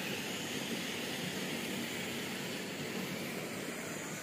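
Steady rushing noise with no pitch, rhythm or distinct hits.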